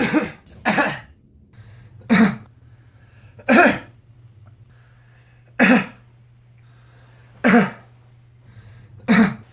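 A man coughing: about seven short single coughs in a row, a second or two apart.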